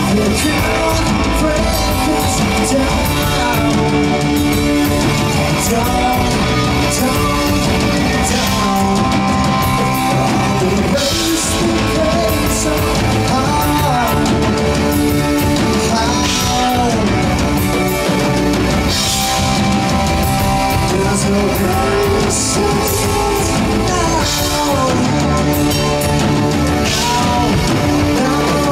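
Progressive rock band playing live: drum kit, bass, electric guitar and keyboards, with melodic lead lines over a steady beat.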